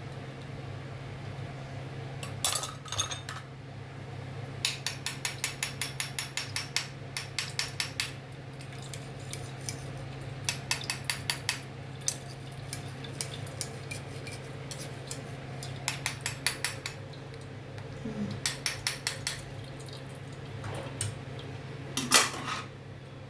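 A utensil clinking against a cooking pot in quick, even runs of about four or five strokes a second, with a louder clatter near the end. A steady low hum runs underneath.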